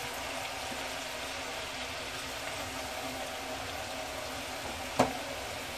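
Besan-coated okra strips deep-frying in hot oil in a steel kadai on a high flame: a steady sizzle. About five seconds in, a single sharp clink of a utensil against the pan.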